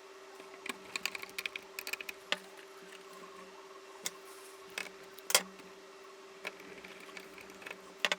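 Scattered small clicks and taps of a screwdriver working tiny screws and washers as a motherboard chipset water block is screwed down, with the sharpest clicks about five seconds in and near the end. A faint steady hum runs underneath.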